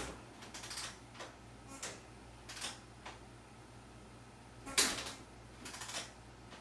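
Scattered sharp knocks and clicks, about eight in all, the loudest at the very start and just under five seconds in, over a faint steady low hum.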